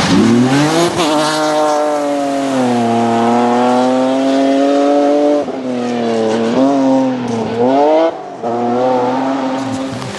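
Rally car engine at high revs on a special stage. The revs climb sharply in the first second and hold high, then drop suddenly about five seconds in before rising and falling again, with a brief lift off the throttle near the end.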